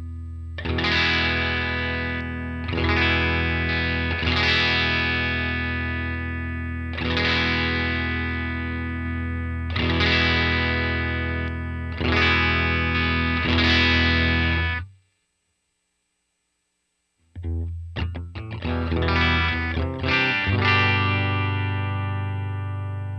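Electric guitar played through a Vox AC30 amp simulation: chords struck every couple of seconds and left to ring. About fifteen seconds in the playing stops dead for about two seconds, then resumes with quicker strums.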